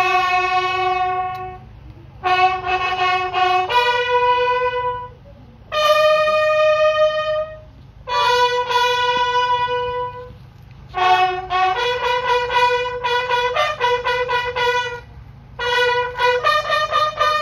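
A lone bugle sounding a military funeral call. Long held notes come in phrases with pauses between them, then quicker repeated notes from about twelve seconds in.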